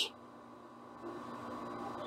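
Quiet room tone with a faint steady hum.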